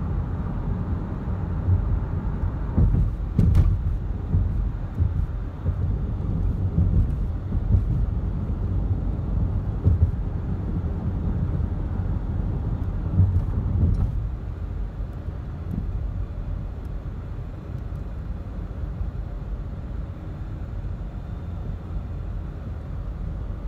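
Car cabin noise while driving: a steady low rumble of engine and tyres on the road, heard from inside the car. It eases a little in the last third.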